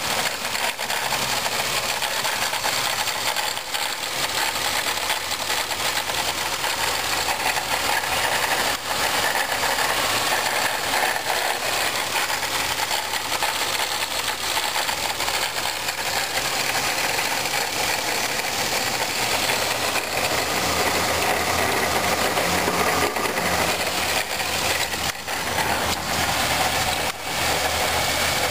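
Supercharged 3800 V6 of a 1997 Pontiac Grand Prix GTP idling with a steady rattling, grinding noise from the supercharger, caused by a worn supercharger drive coupler.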